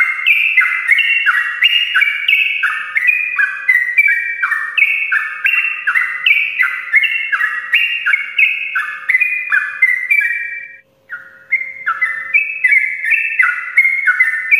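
Yellow-vented bulbul (trucukan) singing its long rapid-fire 'ropel' song: a continuous stream of quick falling notes, several a second, broken only by one short pause about eleven seconds in.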